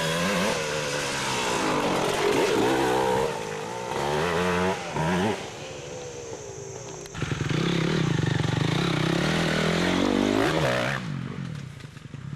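Off-road dirt bike engines revving hard, their pitch rising and falling again and again. There are two loud spells: a lull comes after about five seconds, and the engines come back suddenly about seven seconds in before fading near the end.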